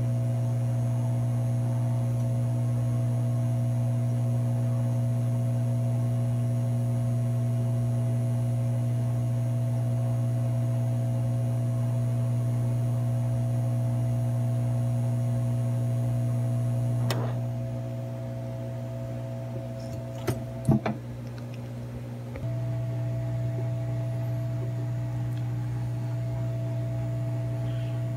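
Hot air rework station's blower running with a steady hum as its nozzle blows onto a laptop logic board to reflow solder. About 17 seconds in it drops lower, a few light clicks follow, and about 22 seconds in it steps back up.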